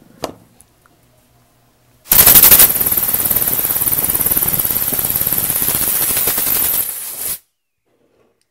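Small homemade compressed-air engine running fast on air from a blow gun, with a rapid, even chatter of exhaust puffs over a hiss of air. It starts abruptly about two seconds in, runs for about five seconds, and cuts off suddenly when the air is taken away.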